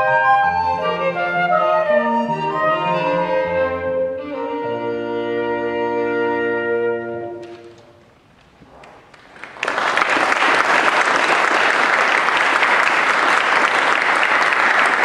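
Recorder and violin with a bass line playing the closing bars of a baroque sonata, ending on a long held chord that dies away about seven to eight seconds in. After a brief pause, audience applause starts suddenly near ten seconds in and carries on steadily.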